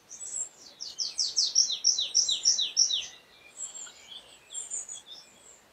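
A songbird singing: a quick run of short, high, downward-sliding notes, about five a second, for roughly three seconds, followed by fainter scattered chirps.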